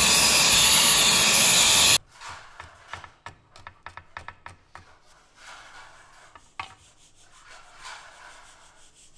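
Cordless stick vacuum cleaner running, sucking dust off an air-conditioner filter, cutting off suddenly about two seconds in. Then a knife chopping green beans on a wooden board: quick chops at first, thinning to scattered taps.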